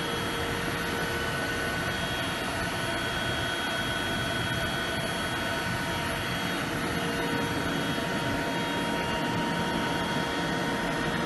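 Mikron UME 560 universal milling machine powered up and running: a steady mechanical hum and whine with several held tones, one higher tone dropping out and another coming in about halfway through.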